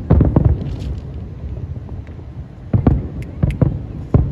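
Fireworks going off in a rapid string of bangs over a low rumble, with a burst of several bangs at the start, another group about three seconds in, and more starting near the end.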